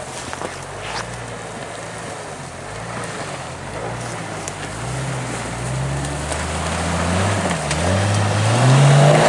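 Jeep Cherokee XJ engine revving in waves as the lifted truck crawls through brush. The revs climb in pitch and loudness through the second half, dip briefly near the end, then rise higher.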